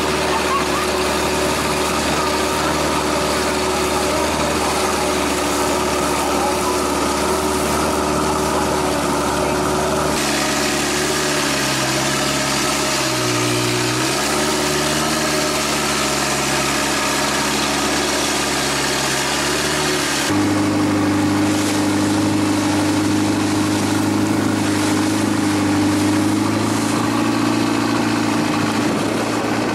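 Exposed stern-mounted engine of a Thai longtail boat running steadily under way, a loud even drone over rushing water and wind. Its pitch dips briefly and comes back up about 13 seconds in, and the sound changes abruptly in tone twice.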